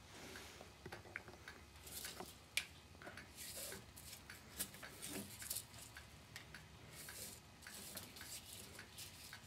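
Hand-tying a cast net mesh: net twine rustling as it is drawn through with a netting needle and pulled into a knot over a wooden mesh gauge, with scattered light clicks and soft rustles.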